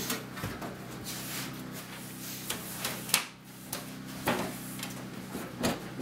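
Scattered light knocks and scrapes as the vent pipe assembly is worked off the back of a Martin direct-vent propane wall heater, the sharpest knock about three seconds in.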